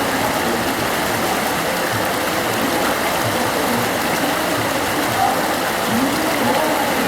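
The Ganges river flowing fast, a steady rush of water.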